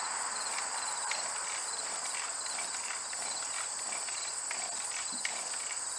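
Insects chirring steadily at a high pitch, with a few sharp clicks, one about a second in and a louder one near the end.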